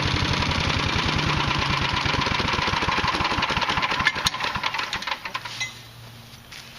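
Patriot wood chipper's small gas engine running steadily, then shut off: about four seconds in it stutters and misfires with a few sharp clicks, and it dies out about a second and a half later.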